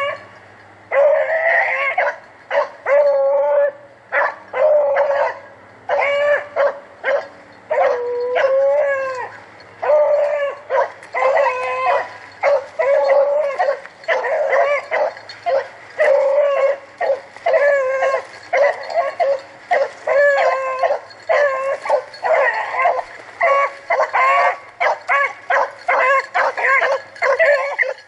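Rabbit-hunting hounds baying in a near-continuous run of yelps and longer drawn-out bawls, several voices overlapping: the hounds giving tongue as they run a swamp rabbit's trail.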